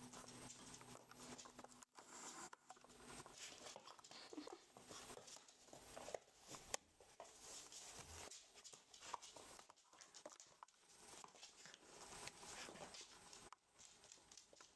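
Faint patter and scuffling of rough collie puppies playing on a wooden floor, with scattered light clicks and a few sharper ticks.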